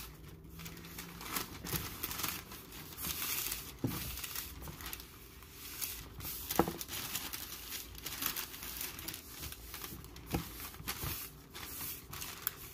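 Parchment paper crinkling and rustling under hands that pat and press almond-flour pizza dough flat, in irregular scattered crackles.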